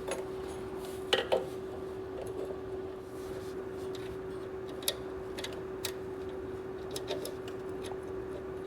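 Scattered light metal clicks and clinks of small parts being handled as the throttle is fitted back onto a small gas engine's carburetor, over a steady hum.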